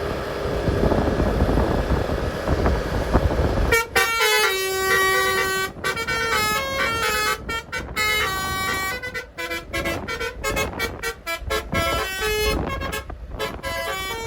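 Tour bus's Basuri telolet horn, a multi-trumpet musical horn, playing a quick tune of held notes that step from pitch to pitch with short breaks. It starts about four seconds in, after a loud noisy rumble.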